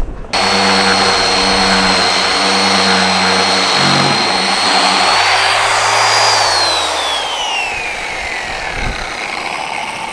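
Electric random orbital sander starting suddenly and sanding cured epoxy fairing compound on a boat hull: a steady high whine over the hiss of the abrasive. About six seconds in it is switched off and the whine falls away as the pad spins down.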